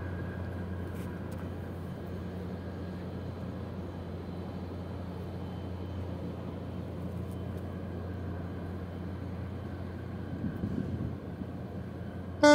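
Steady low drone of ship diesel engines from a container ship and its harbour tug. A ship's horn blasts right at the end.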